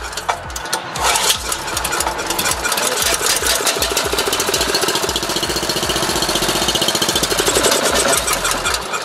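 8 hp Honda engine on a Dayton 4,000-watt generator firing and running for several seconds on fresh gas poured straight into the carburetor. The carburetor is getting no fuel from the tank, so it runs only on that prime.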